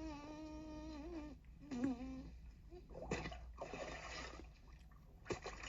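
Alexa's 'bathtub fart' sound effect played through a smart speaker. A reedy, pitched fart tone holds for about a second and a half, then comes a short wobbling one. After that comes a stretch of bubbling, splashing water, and a shorter burst of it near the end.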